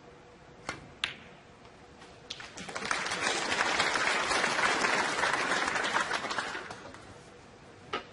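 Two sharp snooker-ball clicks close together, the cue tip striking the cue ball and the cue ball hitting an object ball. An audience then applauds for about four seconds, swelling and fading away.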